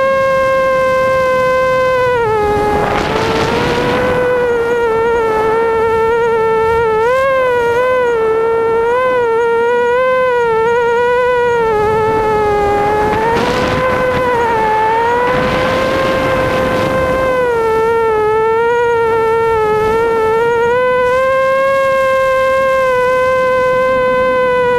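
FPV racing quadcopter (ImmersionRC Vortex) motors whining, a high buzzing tone that holds steady, then dips and wobbles in pitch as the throttle changes. Several rushes of noise come through, about three seconds in and twice more in the middle.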